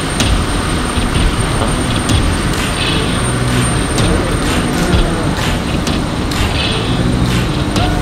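Steady low rumbling outdoor noise, with faint voices and a few short clicks.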